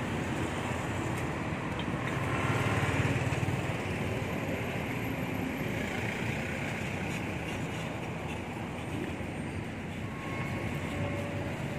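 Steady street traffic noise, swelling briefly about two to three seconds in as a vehicle passes.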